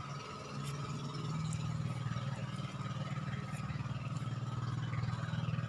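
An engine running steadily at idle, a low even hum that comes up slightly about half a second in.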